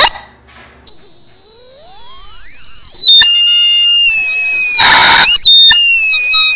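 Chicken sound effect played extremely loud and distorted: a long high squeal held steady for about two seconds, then lower squealing tones broken by a harsh noisy blast about five seconds in.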